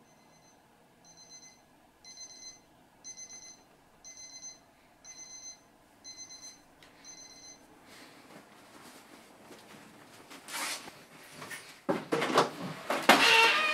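Digital wristwatch alarm beeping in short high bursts, about one a second, eight times, stopping after about seven seconds. Then rustling movement, with louder clattering and knocking near the end as a door is handled.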